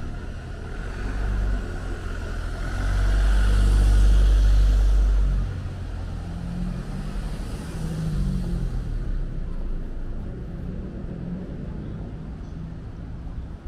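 A car passing close by on a narrow street: engine rumble and tyre hiss swell to a loud peak about four seconds in, then drop away, leaving lighter traffic noise.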